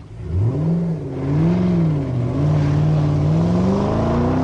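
Firebird Trans Am's LS1 5.7-litre V8 revving: two quick blips up and down in pitch, then one long, steady climb.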